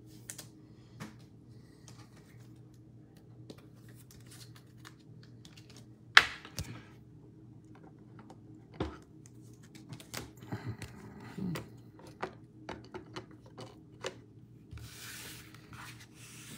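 Trading cards and plastic card sleeves being handled and set down, giving scattered sharp clicks and taps. The loudest click comes about six seconds in, a run of smaller clicks follows later, and a brief rustle comes near the end, over a faint steady hum.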